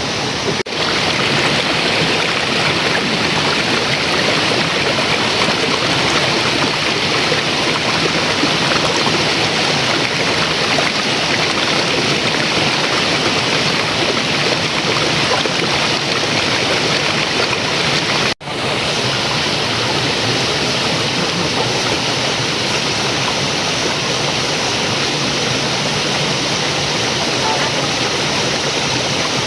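River water rushing, a loud steady noise that drops out for an instant twice, about half a second in and about eighteen seconds in.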